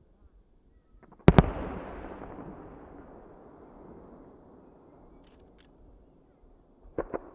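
Aerial firework shell bursting with a sharp double bang about a second in, followed by a long rolling echo that fades over several seconds. Two more sharp cracks come near the end.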